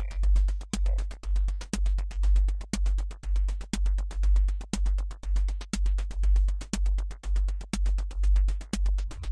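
Electronic music: a drum-machine beat with a deep bass pulse about twice a second under fast, clicking hi-hats, with little else on top.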